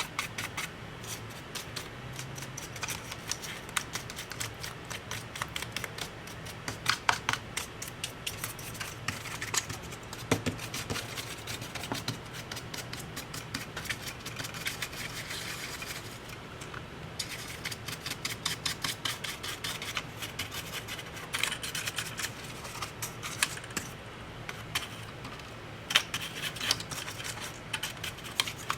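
Quick scratching and rubbing strokes, many a second, with scattered louder clicks: hand work on the dust-clogged internals of an opened 2012 MacBook Pro.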